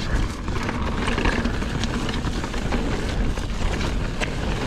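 Mountain bike, an Ibis Ripmo AF, riding fast over rocky, rooty singletrack: a steady rumble of tyres on dirt and dry leaves, with scattered sharp knocks and rattles from the bike over bumps and rocks.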